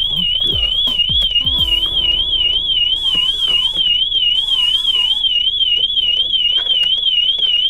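Car alarm siren of a Meta System alarm on a VW Golf or Jetta going off: a loud, high tone that warbles up and down about four times a second without a break. The alarm has been triggered and is not yet disarmed.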